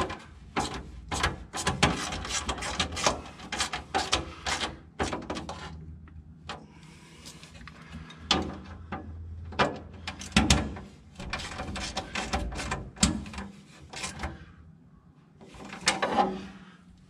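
Irregular clicks, ticks and knocks of fasteners being started and run in by hand on an old plastic blower-fan shroud, in clusters with short pauses between.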